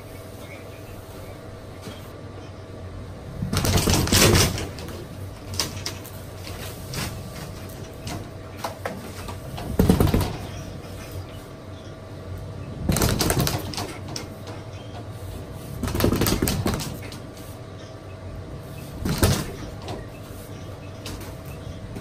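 New plastic water service line dragging and scraping through the cored hole in a cinder-block foundation wall as it is pulled through by cable, in about five short surges a few seconds apart, over a steady hum.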